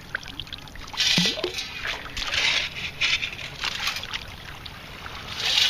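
A metal-detecting sand scoop being worked through wet sand and water: several short rushes of sloshing water and sand, about a second in, again two to three seconds in, and near the end.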